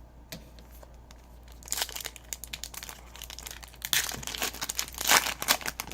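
Trading-card pack wrapper crinkling as it is torn open, in two spells of crackling, the second louder.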